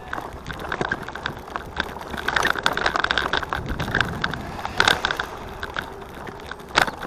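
A bicycle with a child carrier riding along a road, its frame and carrier clattering and rattling irregularly over the surface, with a steady rumble of tyres and wind underneath.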